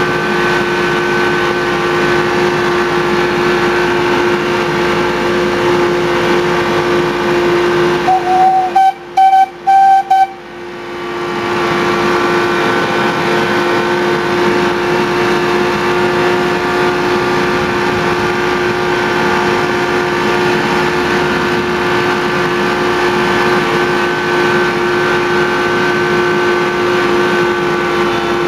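Miniature railway locomotive's engine running steadily under load, heard from the cab. About eight seconds in, a loud pitched blast of the locomotive's horn sounds for about two seconds.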